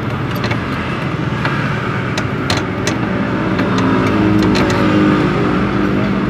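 A motor vehicle engine running, its pitch rising a little around the middle, with scattered sharp clicks and taps over it.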